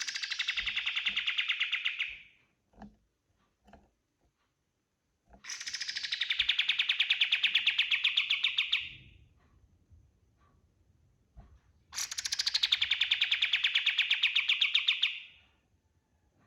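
Kapas tembak songbird singing three long rapid trills, each a fast run of repeated notes that starts high and settles lower, a few seconds apart.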